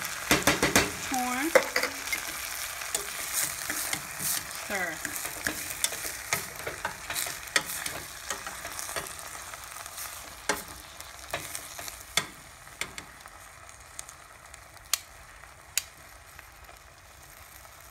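Black beans, onions, red peppers and sweet corn sizzling in a stainless steel pot while being stirred. Frequent clicks and scrapes of the utensil against the pot sit over a steady sizzle. The clicks thin out and the sizzle fades toward the end.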